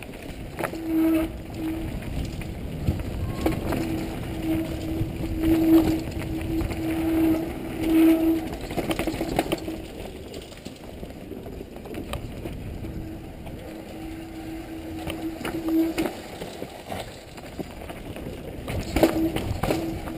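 Mountain bike descending a dirt singletrack heard from a helmet camera: tyres rumbling and the bike rattling over bumps, with wind buffeting the microphone. A steady humming tone from the bike comes and goes, stopping for a few seconds about halfway through.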